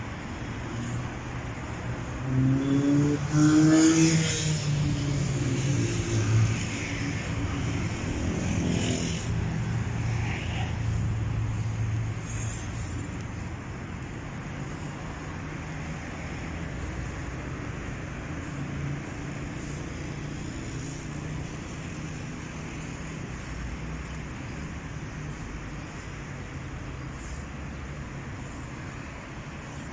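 Road traffic: a motor vehicle passes loudly with its engine pitch rising, loudest from about two to six seconds in. A second vehicle passes soon after, and then a steady traffic hum remains.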